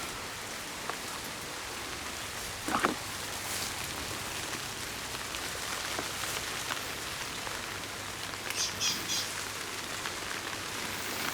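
Steady rain falling on the yard, pattering on surfaces. There is a brief louder sound about three seconds in and a few short high chirps near the end.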